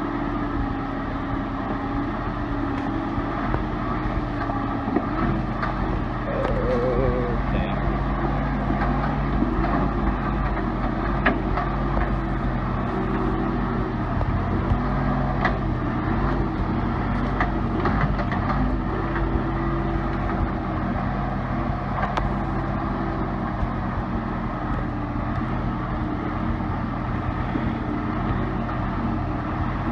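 Case 580B backhoe's four-cylinder diesel engine running steadily while the machine is driven slowly downhill, its pitch wavering a little, with scattered clanks and rattles.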